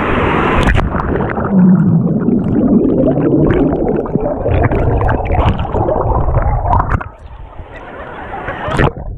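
Wave-pool wave washing over the microphone: churning, gurgling water, muffled as if the mic has gone under. It drops away about seven seconds in, with a sharp hit near the end.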